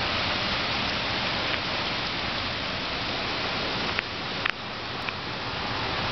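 Heavy rain pouring down in a steady, dense hiss. A couple of brief knocks come about four seconds in, after which the rain sounds slightly softer.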